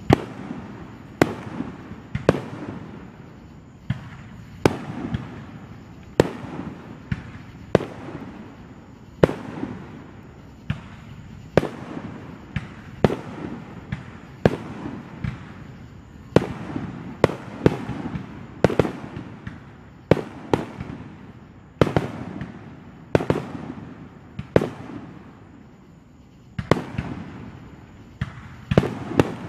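Aerial firework shells bursting in steady succession, about one sharp bang a second, each followed by a low rolling echo.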